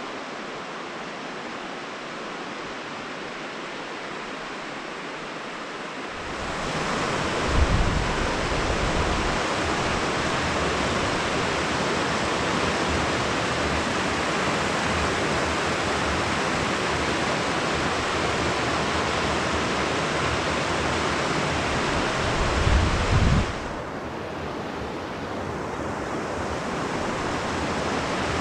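Steady rush of the Abisko River's flowing water. It grows louder about six seconds in and drops back near the end, with a low thump at each change.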